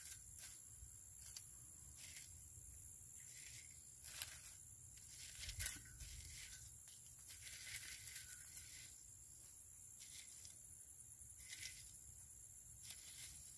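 Faint rustling and crinkling of dry tinder being handled and piled by hand among charred pieces in a metal fire bowl, with one soft knock a little past halfway.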